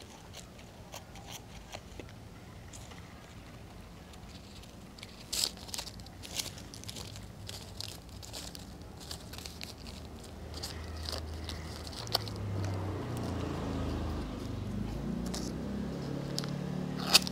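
Light rustling and crinkling of ribbon and plastic being handled, with scattered small clicks. A low hum swells in the second half.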